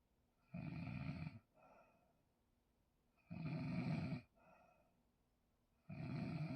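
A person snoring: three long snores about every three seconds, each followed by a short, softer breath.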